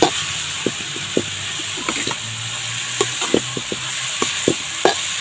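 Spatula stirring and scraping chopped green onions and spices around a metal karahi, with irregular knocks of the spatula against the pan over a steady sizzle of the food frying.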